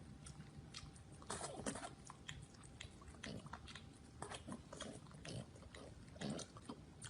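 A pet animal making short, quiet noises at irregular intervals, a few in a second.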